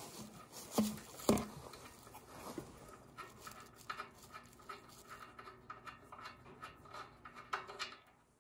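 Small metal clicks and taps from a wrench loosening the oil drain bolt of a generator engine, with two sharp clicks about a second in and a run of quick light ticks through the middle.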